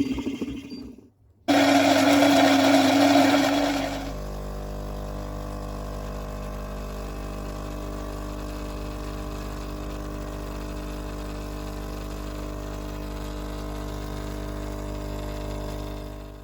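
Small electric kitchen appliance motor running: a short loud high-speed run, then from about four seconds in a steadier, quieter hum that cuts off at the very end.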